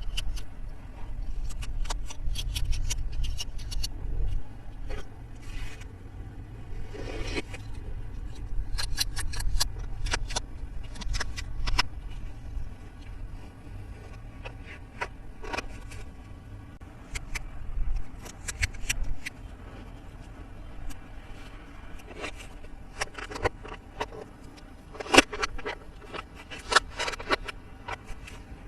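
Hands handling plastic toy pieces: a long run of scattered sharp clicks and taps with low rubbing and handling noise, the loudest click coming near the end.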